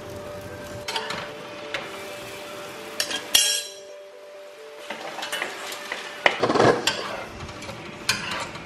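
Kitchen clatter: several sharp clinks and knocks of metal utensils and pans over the faint sizzle of a rice-flour flatbread cooking on a flat griddle. The clinks bunch together about three seconds in and again in the last few seconds.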